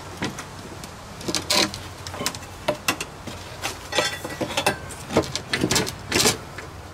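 Plywood board knocking and scraping against the golf cart's battery compartment as it is bent and worked down into place: a run of irregular clicks, knocks and short scrapes.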